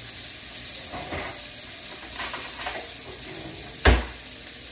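Hamburger patties frying in a hot cast iron pan, a steady sizzle. A few light clatters and one loud thump about four seconds in.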